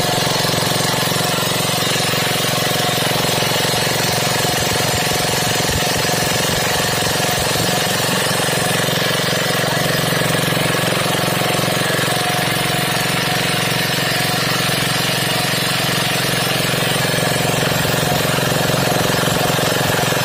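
Greaves MK12 single-cylinder air-cooled petrol engine running steadily, freshly rebuilt with new piston rings and running smoothly.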